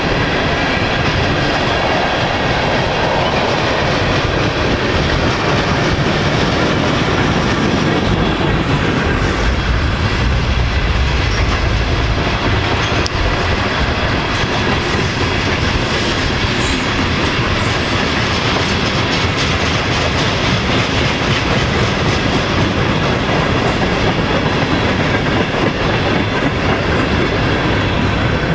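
A freight train's tank cars and covered hopper cars rolling steadily past, with the wheels clattering over the rails. Thin high-pitched wheel squeals come and go in the middle.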